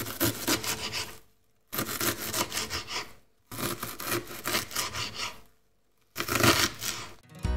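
Sound effect of a marker writing, in four spells of about one and a half seconds each, separated by short pauses.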